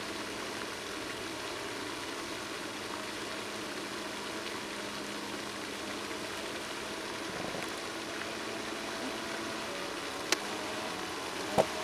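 Radio-controlled model boat running across a pond: a steady rushing hiss of its motor and wake, with two sharp clicks near the end.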